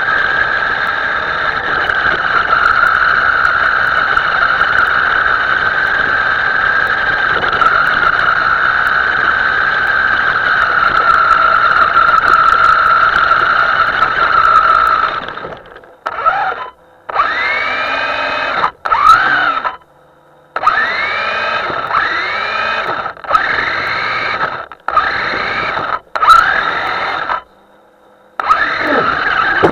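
Electric motor of a Himoto radio-controlled model whining steadily at a high pitch for about fifteen seconds. It then cuts out and spins up again in seven or eight short throttle bursts, each rising in pitch, with brief silences between them.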